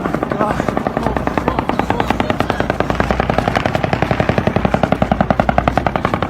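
Sustained burst of rapid automatic-style gunfire, an even stream of about ten shots a second with no break.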